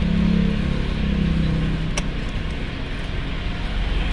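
Steady vehicle engine and traffic noise with a low hum that fades after about a second and a half, and a sharp click about two seconds in. It is not the Strada itself, which does not crank.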